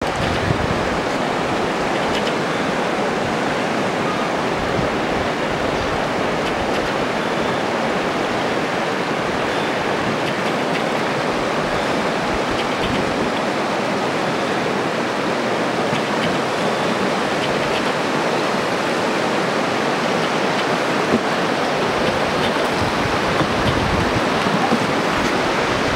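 River rapids rushing steadily over rocks: a loud, even roar of white water.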